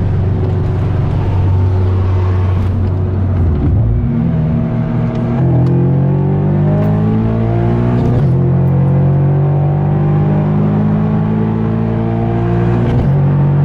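Subaru BRZ's flat-four boxer engine heard from inside the cabin, accelerating hard through the gears. Its pitch climbs steadily in long pulls and drops at each upshift, about four, eight and thirteen seconds in.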